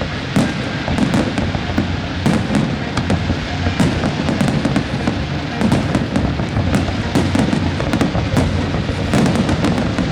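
Aerial fireworks display bursting continuously: a dense run of sharp bangs and crackles over a low rumble of booms, with the show's music playing alongside.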